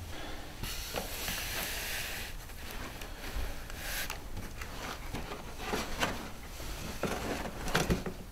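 Straw hats rustling and rubbing against a cardboard box as they are handled: a longer scrape about a second in, then shorter rustles and a few light knocks.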